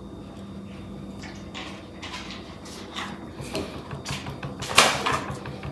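Spatula scraping cake batter out of a mixing bowl into a baking pan: a run of short scrapes and soft knocks against the bowl, the loudest one near the end.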